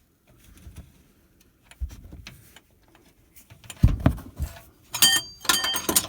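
Handling of metal tools: a few dull knocks, then from about five seconds in a run of sharp metallic clinks and rattles with a ringing tone.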